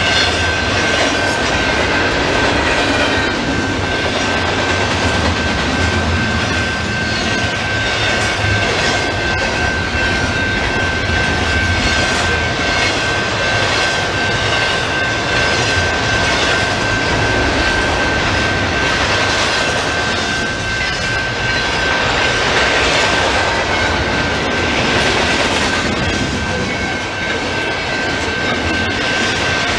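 A double-stack intermodal container train rolling past at close range: a steady rumble of wheels on rail, with a thin, steady high-pitched tone held throughout.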